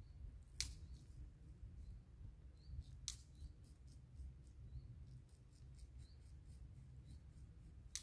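Straight razor scraping through lathered, two-week-old beard stubble: a run of faint, crisp, short rasping strokes, with a few sharper clicks, over a low rumble.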